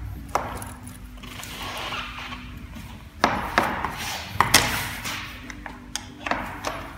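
Scattered sharp clicks and knocks of an Allen key working the height-adjustment screw of a uPVC window sash hinge, raising the sash so it stops catching on the frame.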